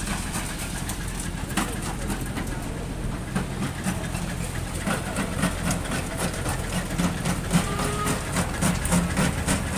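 Engine of a vintage road-construction machine running at a steady low speed, with a pulsing beat that grows stronger about halfway through and scattered clicks and knocks over it.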